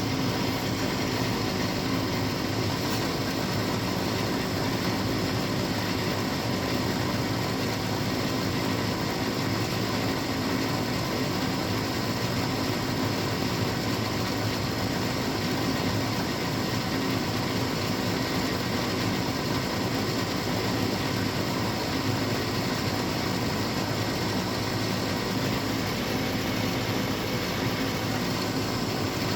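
Gas furnace's motor running with a steady mechanical hum and a low constant tone.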